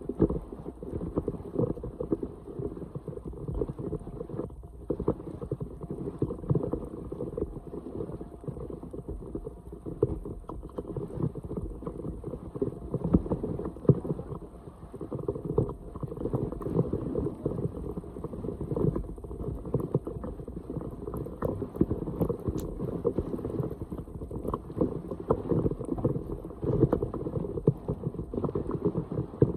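Floodwater splashing and sloshing continuously, with many small irregular knocks.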